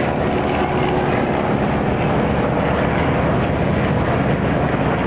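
Two aerobatic airplanes flying a formation routine, their engines giving a steady drone with several pitched tones.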